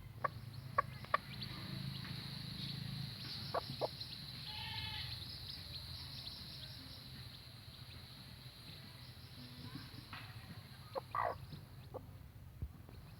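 Farmyard ambience: a steady high hum with scattered clicks, and a short bleat-like animal call about four and a half seconds in, with another brief call near the end.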